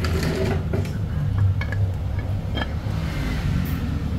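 Steady low hum of a motor vehicle engine running, with a few light metallic clicks and clinks from hands handling a bare cylinder head.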